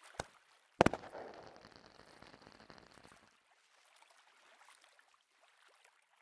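Cartoon firework sound effect: a small pop, then about a second in a loud bang followed by crackling fizz that fades over about two seconds, leaving faint crackles as confetti falls.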